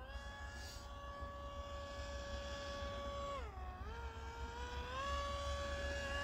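Electric motor and propeller of an RC foam F-35C model jet, driven by an AeroScout motor, whining steadily in flight and growing louder as the plane comes closer. The pitch drops as the throttle is eased back about three and a half seconds in, rises again about five seconds in, then starts to fall right at the end.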